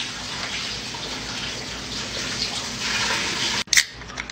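Liquid from several drink cans pouring at once into a large plastic tub of punch, a steady splashing. Near the end the pouring cuts off and a can's pull tab snaps open with a sharp crack.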